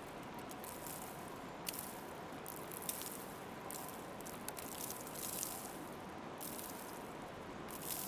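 Footsteps crunching slowly through snow, about one step a second, over a steady soft hiss of snowy outdoor ambience.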